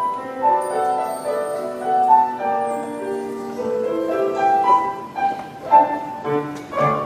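Live music with piano accompaniment, a melody of held notes moving step by step, without sung words.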